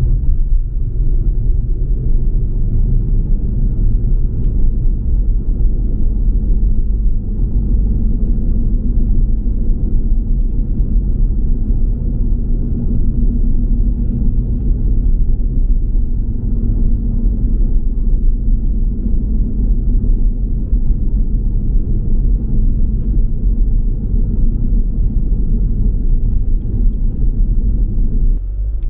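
Steady low rumble of a car driving on the road: road and engine noise with no sharp events.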